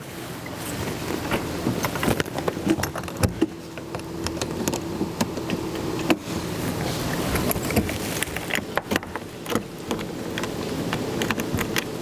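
Scattered clicks and knocks of a Piper Cherokee 180G's engine cowling being handled and pinned back into place, over a steady hum.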